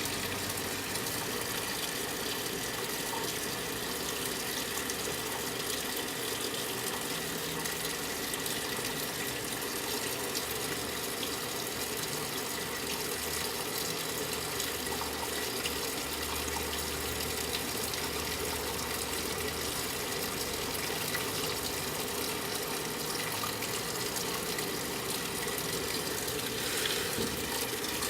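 Brastemp 9 kg washing machine filling with water: a steady gush of water running into the tub, with no change throughout.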